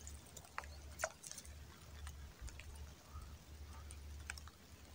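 Faint, scattered taps of light raindrops falling on swamp water and grass, over a low rumble.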